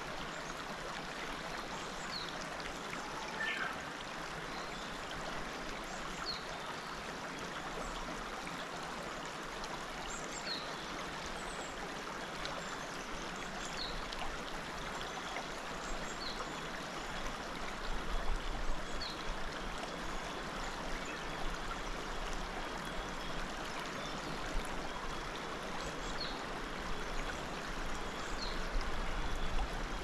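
Shallow mountain stream flowing steadily over stones, with short high bird chirps every second or two.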